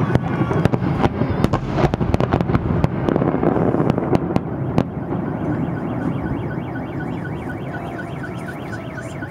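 Fireworks salute: a rapid run of bangs and crackles in the first half, thinning out in the second half, with a faint evenly repeating electronic beeping underneath.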